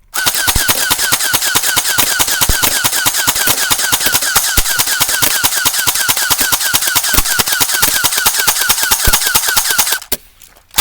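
Airsoft gun firing on full auto: one unbroken stream of rapid shots for about ten seconds, cutting off abruptly near the end.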